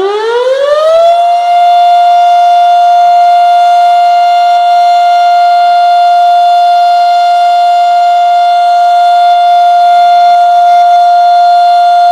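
Federal Signal Model 5 outdoor warning siren sounding its noon test blast: the pitch finishes winding up in about the first second, then holds one loud, steady wail.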